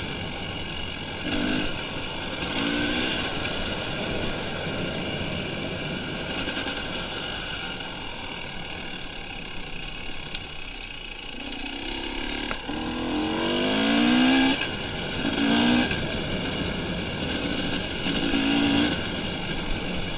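Dirt bike engine running and revving up in short bursts while ridden, over a steady rush of wind and road noise; the longest, loudest rev comes about two-thirds of the way through.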